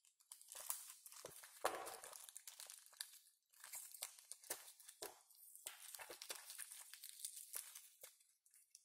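Wrapping of a small parcel being torn and crinkled open by hand: irregular faint rustling and crackling, with a louder rip about two seconds in.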